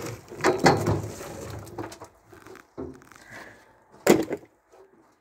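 Split beech firewood logs being lifted off a trailer and thrown down: a series of hard wooden knocks and thuds, with the loudest knocks just under a second in and about four seconds in.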